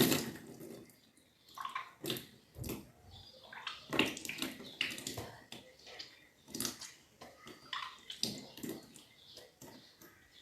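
A person retching and bringing up the water they have drunk, which gushes out and splashes down in a series of irregular bursts: kunjal kriya, a yogic cleanse in which vomiting is deliberately induced with the fingers.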